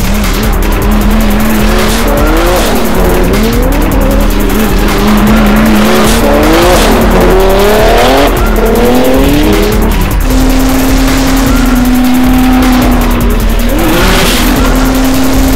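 Drift car engines revving up and down in repeated sweeps, with tire squeal from a Nissan 240SX sliding sideways, mixed over music.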